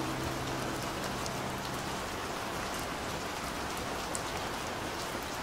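Steady rain falling: an even hiss with faint scattered drop ticks. The song's last low held notes die away about two seconds in.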